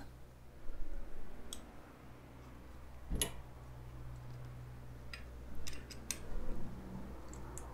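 An Allen key clicking and tapping in the bolt heads and against the brass pump head as the short bottom bolts are worked loose: a few scattered sharp metallic clicks, the sharpest about three seconds in, over a faint low hum.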